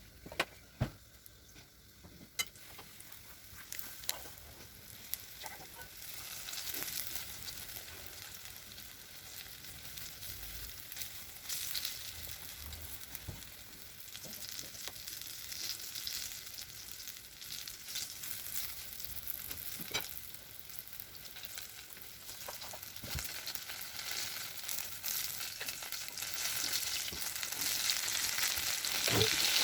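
Breadcrumb-coated potato-and-frankfurter patties sizzling in hot frying oil, the sizzle building from a few seconds in and growing louder toward the end. A few sharp taps sound in the first couple of seconds.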